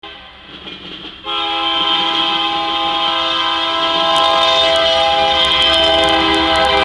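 Diesel freight locomotive's air horn sounding one long, steady blast, a chord of several notes held together, starting about a second in over the lower rumble of the approaching train.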